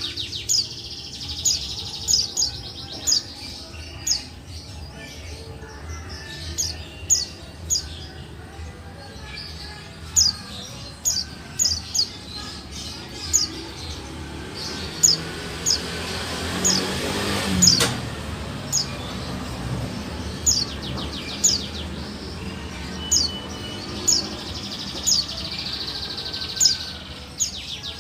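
Female buxtoni white-eye (pleci) calling: short, high, downward-sliding chirps repeated irregularly, about one or two a second. A rush of noise swells up past the middle and ends sharply.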